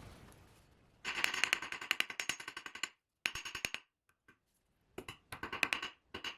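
Small hammer tapping quickly on a thin steel wire against an anvil, cold-forging the wire's end into a point, with a bright metallic ring on each blow. The taps come in three quick runs, the longest about two seconds, with short pauses between.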